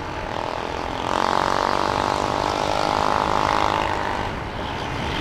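Motor vehicle engine drone swelling about a second in and fading near four seconds, heard from a moving motorcycle over steady wind and road rush.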